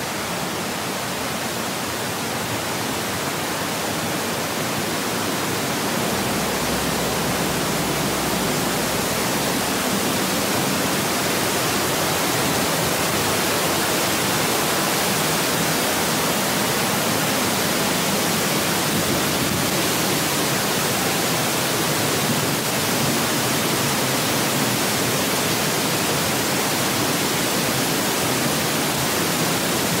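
Waterfall and the rocky river below it rushing, a steady even hiss that grows a little louder over the first few seconds and then holds.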